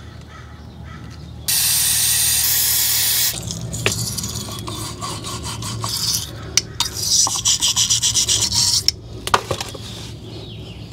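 Aerosol brake parts cleaner sprays in a steady hiss for about two seconds into the caliper bracket's slide-pin bores. A small twisted-wire bore brush then scrubs inside the bores in quick, rhythmic rubbing strokes, with a few light knocks of the metal bracket near the end.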